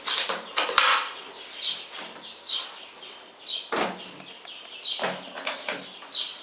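Metal draw-catch latches on a wooden plywood case being unclipped, with a handful of sharp clicks and knocks as the case is handled.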